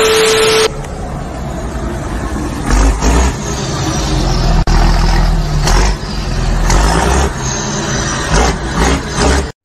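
A short burst of TV-static hiss with a steady tone, then road and engine noise heard from a dashcam car. From about three seconds in, a heavy low rumble with several knocks runs on while a heavy truck ahead tips over onto its side in a crash.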